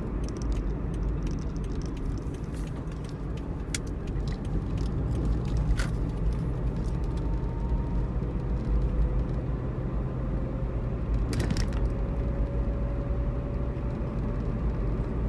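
A Pontiac Vibe driving along, heard from inside the cabin: a steady low road and engine rumble, with a faint whine that slowly rises in pitch as the car picks up speed. A few light clicks come through.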